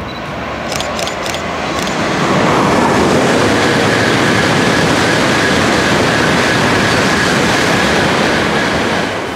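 Tokaido Shinkansen train passing through the station at speed without stopping: a rush of air and wheel noise that builds over the first two seconds, holds steady with a faint high whine for about six seconds, then begins to fade near the end.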